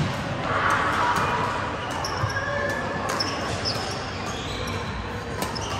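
Basketball game in a gym: the ball bouncing on the court in sharp repeated knocks, with short high squeaks from shoes on the floor and a general hubbub of players and onlookers.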